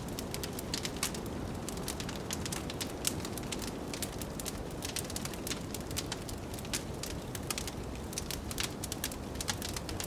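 Wood fire in a fireplace crackling, with many irregular sharp pops and snaps over a steady low rush of noise.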